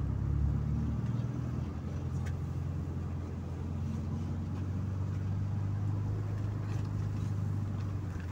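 PAZ-4234-05 bus's diesel engine running steadily under way, with road noise, heard from inside the passenger cabin. A few light rattles come through the drone.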